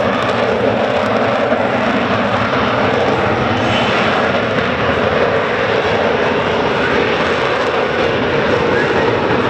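Jet noise from an F-35B Lightning II hovering in STOVL mode with its lift fan engaged, its single F135 engine running at high power. A loud, steady noise that holds without rising or falling.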